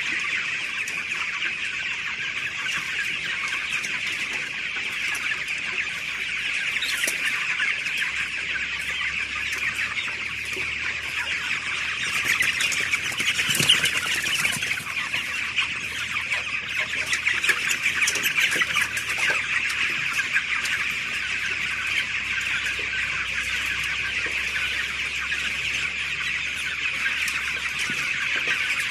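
A large flock of young chickens, about 19 days old, calling together in a dense, continuous chorus of overlapping high peeps and clucks. It grows louder for a few seconds near the middle, with a few sharp knocks.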